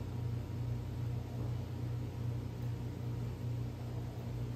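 Steady low mechanical hum with a low rumble beneath it, running unchanged throughout.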